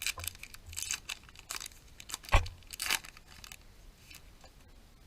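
Baseball card pack wrapper being torn open and crinkled, in a run of rustling bursts, with one sharp knock about two and a half seconds in; quiet for the last second and a half.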